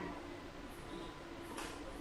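Faint room tone, with a short intake of breath near the end.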